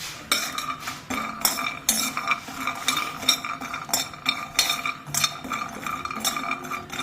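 Almonds being stirred in a metal kadhai, the utensil scraping and clinking against the pan in quick, irregular clicks with a faint metallic ring.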